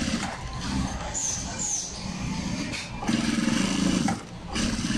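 Juki industrial sewing machine stitching a collar seam in several short runs of about a second each, stopping and starting as the fabric is guided.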